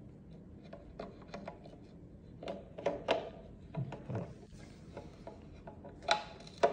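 Light clicks, taps and rubbing as a slit lamp's metal-ringed binocular assembly is slid into its mounting slot and turned to seat on the plastic microscope body, with a louder bump near the end.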